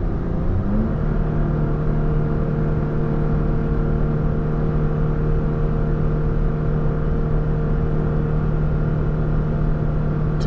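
Toyota Tacoma's V6 engine droning steadily in the cab under tow, with road and tyre noise. The engine note rises briefly about a second in, then holds one steady pitch.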